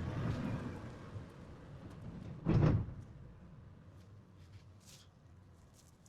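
A single dull knock about two and a half seconds in, among quieter rustling handling noise and a few light clicks.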